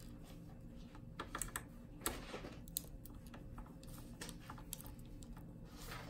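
Light, irregular clicks and taps of a small metal pocket-knife tool against a laptop's plastic base and access panel, the sharpest about two seconds in.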